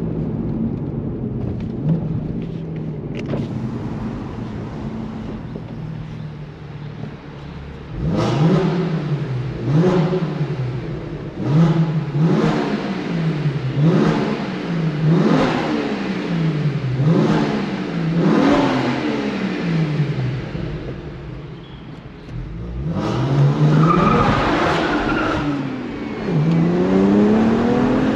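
BMW 1M's twin-turbo straight-six running steadily, then revved again and again, the pitch climbing and falling about every second and a half. After a short lull it is revved a few more times near the end.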